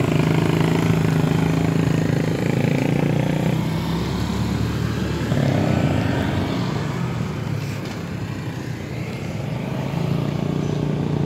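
A motor vehicle engine running steadily, louder in the first few seconds, easing off in the middle and building again near the end.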